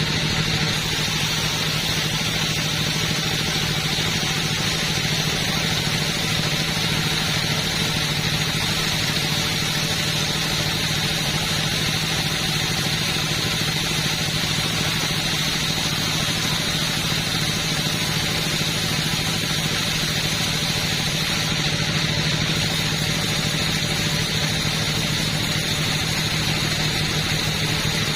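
Two-stroke chainsaw running steadily, its engine note holding one even pitch with no revving up or down.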